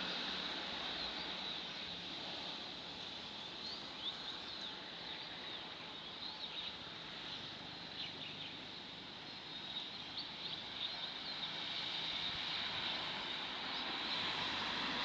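Steady outdoor noise left behind by a departing diesel railcar train, its rumble fading. A high steady hum runs throughout, and birds chirp now and then, several times in the middle.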